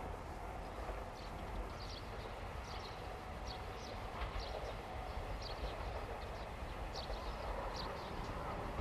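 Low, steady rumble of a KiHa 40-series diesel railcar approaching slowly in the distance. Short high chirps repeat about every half second to a second over it.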